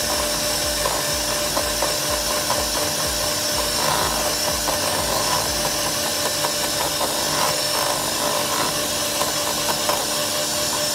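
Electric hand mixer running steadily at high speed, its beaters whipping heavy cream and ube halaya into frosting, with light tapping and scraping of the beaters against the bowl.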